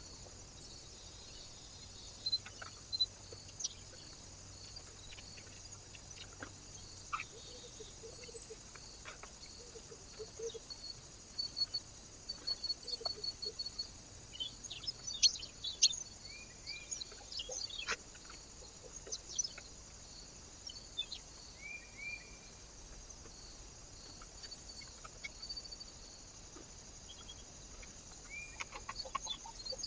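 Small birds chirping and calling at intervals, with many short sharp clicks and ticks.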